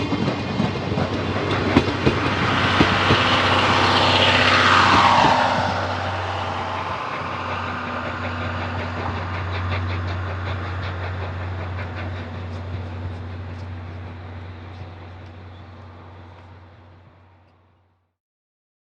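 Steam-hauled passenger train of 14-series coaches rolling past with wheel clickety-clack over the rail joints, then receding: a loud passing noise falls in pitch about five seconds in, and the sound fades away under a steady low hum until it dies out near the end.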